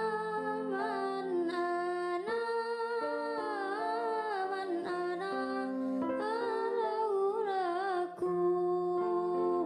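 Background music: a slow song with a wordless, sliding vocal melody over long held chords.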